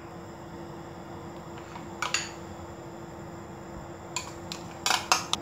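Metal spoon clinking against a glass bowl as yogurt is scooped out: a couple of clinks about two seconds in, then a quick run of four or five near the end, over a faint steady hum.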